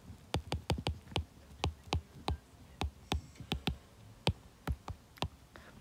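Stylus tip tapping and ticking on a tablet's glass screen during handwriting: a string of light, irregular clicks, about three or four a second.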